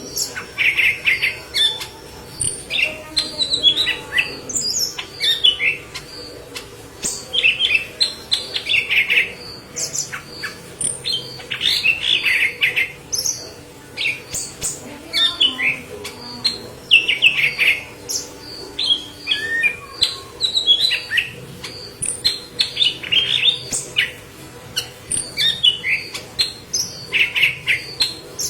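Leafbird (murai daun, yellow-headed form) singing vigorously: a quick, unbroken run of varied chirps, trills and whistled notes, a new short phrase every half second or so.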